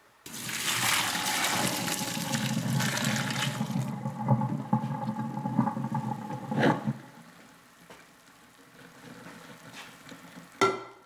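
Spaghetti cooking water poured from a pot through a stainless-steel colander into a metal sink: a loud rushing splash that tapers off and stops about seven seconds in, leaving faint draining. A short sharp knock near the end.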